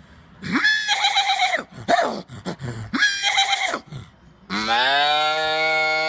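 A person imitating farm-animal calls with their voice: a few short wavering calls, then, about four and a half seconds in, one long low held call like a cow's moo.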